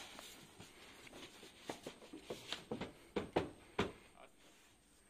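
A quick run of about a dozen irregular knocks and clicks, bunched in the middle and loudest near the end of the run, over a faint hiss.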